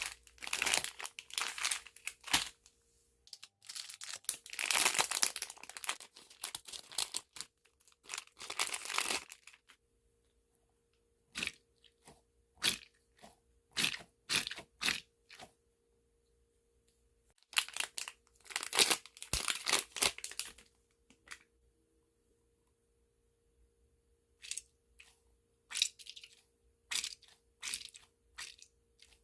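Crinkling, crunching handling noise from a squishy toy being squeezed and handled, in irregular bursts of crackles with quiet gaps between them.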